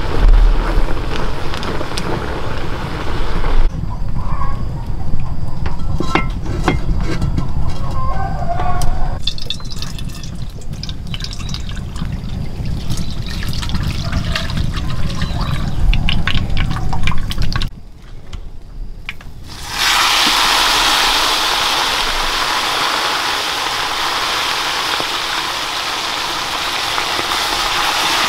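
Liquid poured into a black wok over a wood fire, with scattered crackles; about twenty seconds in, a loud steady sizzle starts as whole fish fry in hot oil.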